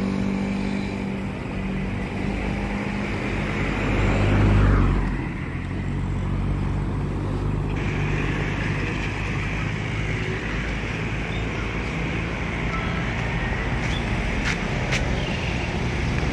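Street traffic: motor vehicles running by on the road, one passing close and loudest about five seconds in.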